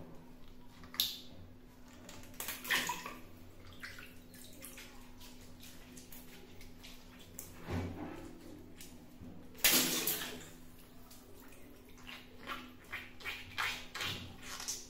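Water balloons being popped, each sharp pop followed by a brief splash of water. The loudest pop comes about ten seconds in, with two others in the first three seconds and a quick run of smaller splashes near the end.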